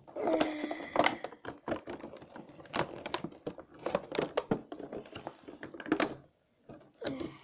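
Clear plastic packaging bag crinkling and crackling as it is handled and picked open by hand: a dense, irregular run of small crackles and clicks.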